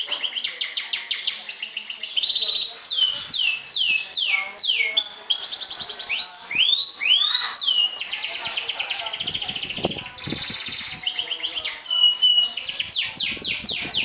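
Domestic canary singing a long, varied song: fast rattling trills alternate with runs of steeply falling whistled notes, and a short steady note comes just after the 12-second mark.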